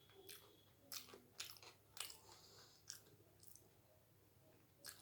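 Quiet chewing of doi fuchka, with about eight short crisp crunches as the fried fuchka shells and jhuri bhaja break up in the mouth among the soft yogurt filling.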